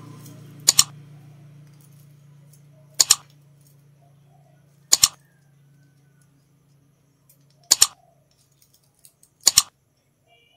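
Metal link bracelet and clasp of a wristwatch clicking as it is worked by hand: five sharp metallic clicks, each a quick double, a couple of seconds apart, as the folding clasp is tugged at.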